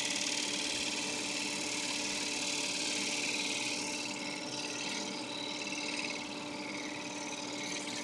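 Wood lathe running while a 5/8-inch bowl gouge cuts the inside bottom of a walnut bowl: a steady motor hum under the hiss of the cut, which eases off about four seconds in.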